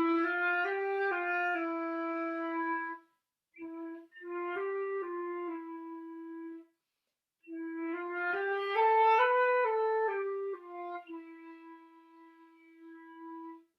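Solo flute playing a slow beginner melody in three phrases: E, F, G, F, E twice, then E stepping up to B and back down to a long held E. A short breath separates each phrase.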